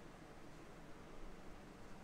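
Near silence: a faint, steady hiss of room tone with no distinct sound.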